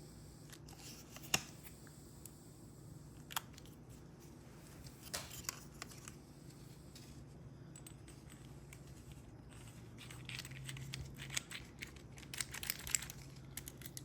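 Small clicks and rubbing of door lock parts being handled and fitted during reassembly of a rekeyed Ford lock cylinder. There are a few sharp, separate clicks in the first half, then a quicker run of small clicks and scraping near the end.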